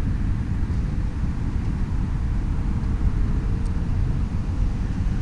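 Steady low outdoor rumble with a faint steady hum, the kind of background left by distant traffic, river traffic or wind on the microphone.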